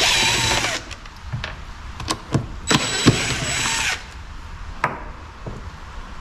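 DeWalt cordless drill/driver spinning screws out of the robot mower's plastic underside panel to reach the battery. It runs in two bursts of whine, a short one at the start and a longer one about three seconds in, with light clicks of the bit and screws between.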